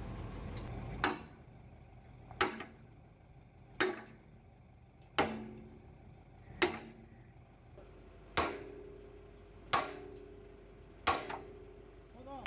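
Hammer blows driving a steel pivot pin into the rebushed bucket-and-stick joint of a JCB excavator: eight steady strikes about a second and a half apart, each with a short metallic ring.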